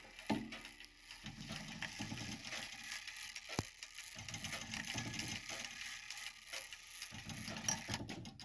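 The rack-and-snail strike train of a Jantar brass clock movement running: gears whirring and ratcheting in several runs with short pauses between them.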